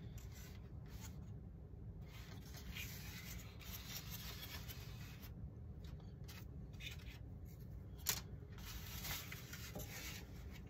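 Faint rubbing and scraping of wooden model-wing parts being handled and worked by hand, in uneven patches, with one short click a little after eight seconds.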